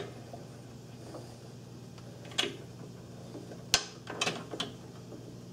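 Drill press table lock being tightened: a few metallic clicks, the sharpest a little past the middle, over a steady low hum.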